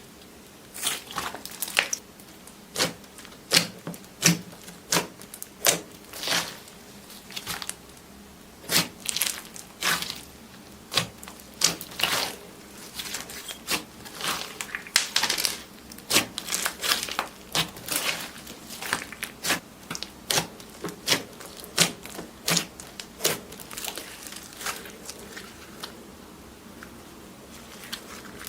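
Slime being pressed and worked by hand, giving off irregular crackling pops, some in quick clusters, thinning out late on.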